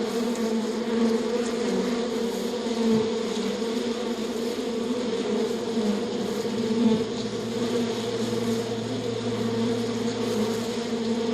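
Flying insects buzzing in a steady, continuous drone, with a lower hum joining about seven seconds in.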